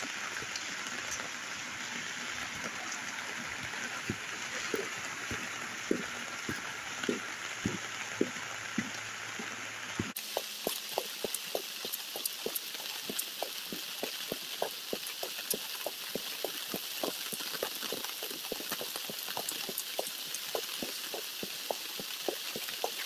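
Steady rain hiss with frequent sharp taps of drops landing close by. About ten seconds in the sound abruptly turns thinner and the taps come thicker.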